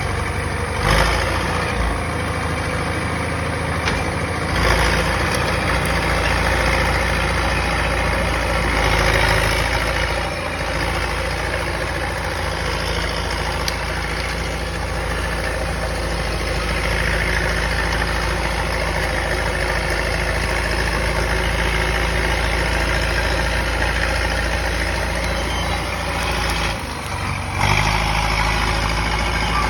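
Caterpillar D4E bulldozer's diesel engine running steadily while clearing land, the engine note dipping and picking up again a few times as the load changes.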